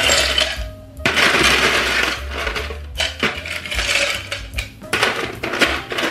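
Ice cubes clattering and clinking against a thin drinking glass and a plastic ice box as the glass is scooped full of ice. There are three long rattling runs, then a few sharper single clinks near the end.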